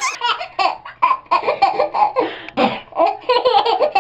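A baby laughing loudly in a quick string of repeated laughs.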